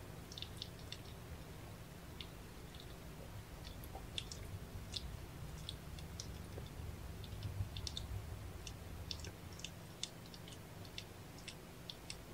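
Mother cat and kittens licking as they groom each other, making soft, irregular wet clicks of tongue and mouth, several a second at times, over a low steady rumble.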